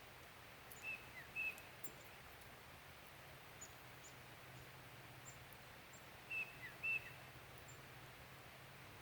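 Small bird calling: short high chirps, each with a quick falling tail, in two pairs, about a second in and again past the six-second mark, over a faint steady hum.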